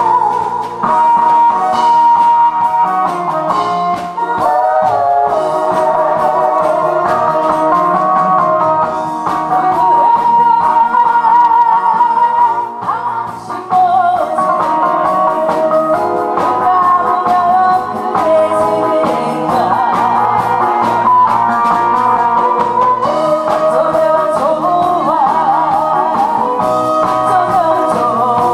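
A woman sings into a handheld microphone over amplified backing music with guitar; the music plays without her voice at first.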